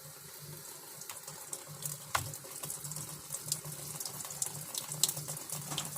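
Washing machine filling, water running into the drum through the inlet. The fill is slow because silt and sand are clogging the inlet.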